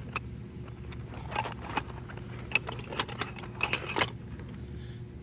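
Loose metal hand tools clinking and clanking against each other as they are rummaged through, in a quick irregular run of sharp clinks, busiest in the middle.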